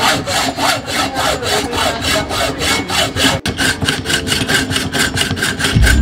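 Hacksaw cutting through a bicycle fork's steerer tube clamped in a saw guide, in quick, even back-and-forth strokes, about three to four a second.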